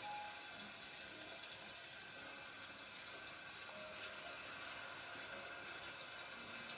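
Thin potato slices sizzling faintly in hot oil at the bottom of a cooking pot, a steady low hiss: the potato crust layer starting to fry.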